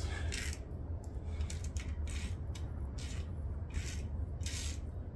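Quarter-inch-drive ratchet turning a thread tap into a stripped water-pump bolt hole in a Honda B18 engine block, worked back and forth. Irregular ratchet clicks and short metal-on-metal scrapes come as the tap cuts new threads.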